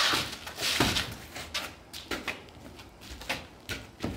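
Sword-and-shield sparring: a series of sharp knocks and thuds at irregular intervals as swords strike shields and each other, echoing in a hard-walled room.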